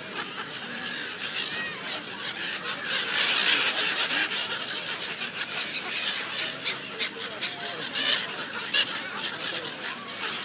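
A flock of gulls calling in many short, sharp cries, thickest a few seconds in, over the chatter of a crowd of people.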